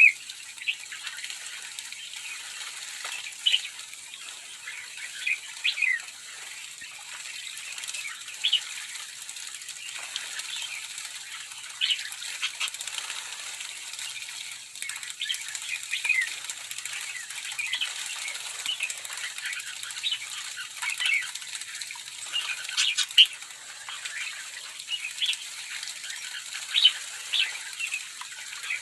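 A large flock of sooty-headed bulbuls calling with many short chirps and whistles, mixed with the fluttering of wings as the birds bathe.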